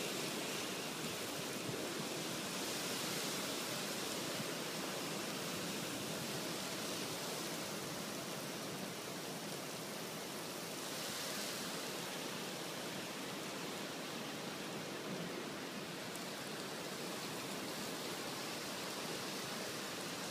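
Heavy driving rain in a windy thunderstorm: a steady rushing hiss that swells briefly about three seconds in and again about eleven seconds in.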